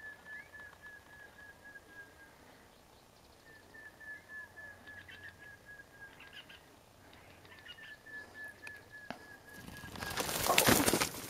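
Montezuma quail calling: three runs of about a dozen short whistled notes, each run slowly falling in pitch. Near the end, loud rustling in the dry grass takes over.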